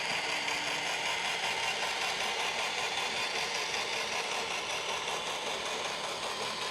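iRobot Roomba Combo i5 robot vacuum running, a steady whirring hiss from its suction motor and brushes.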